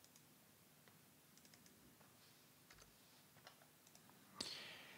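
Faint computer keyboard keystrokes and clicks, a few scattered taps in near silence, then a brief soft rush of noise near the end.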